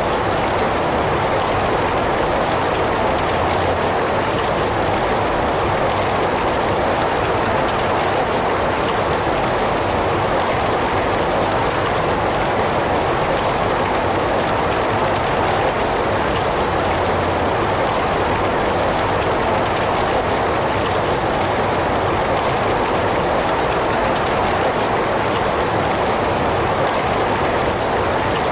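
Heavy rain falling steadily, an even unbroken hiss of rain on surfaces.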